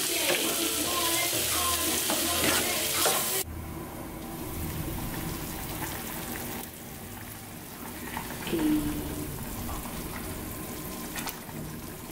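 Vegetables sizzling in a metal pot of coconut curry, the loud frying hiss cutting off abruptly about three and a half seconds in. After that the curry simmers more quietly, with a spoon stirring and tapping in the pot near the end.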